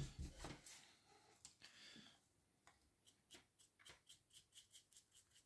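Faint scratching of a stiff dry brush scrubbing over a plastic miniature, short quick strokes at about three to four a second starting a couple of seconds in.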